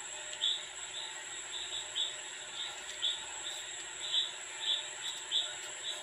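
An insect chirping in short high bursts, about two a second, over a steady background hiss.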